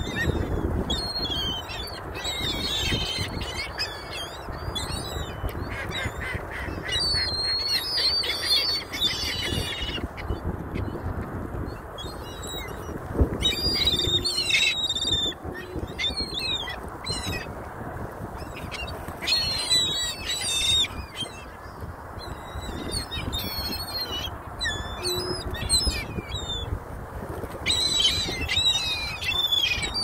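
A flock of gulls and Canada geese calling in repeated bursts of high, squealing cries, over a steady low rushing noise.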